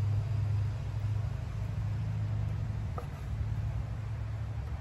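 Steady low rumble throughout, with a faint small click about three seconds in.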